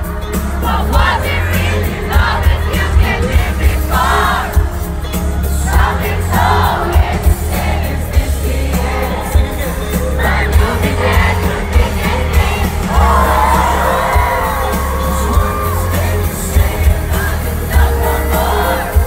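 Live pop band playing through a concert PA, with a male lead vocal singing in phrases and a crowd singing along, recorded from inside the audience, with a heavy booming bass.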